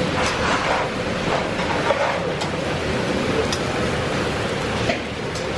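Steady hiss and rumble of a hot, steaming dosa griddle at a busy stall, with a few light clicks of utensils.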